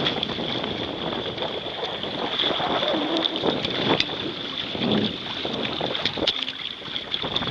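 Wind buffeting the microphone, with water rushing and splashing against the hull of a Hobie Tandem Island sailing kayak under way.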